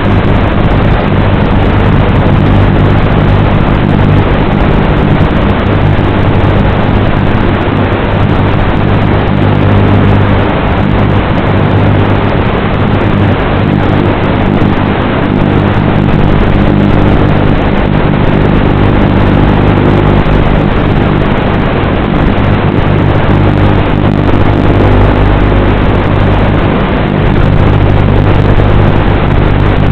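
Small electric motors of an FPV craft running steadily, a continuous buzz with a constant low pitch and a hissing noise over it, picked up by the craft's onboard camera.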